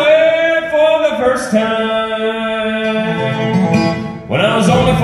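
Live bluegrass band playing, with banjo, acoustic guitars and upright bass. Voices hold long sung notes, with a brief dip in loudness about four seconds in.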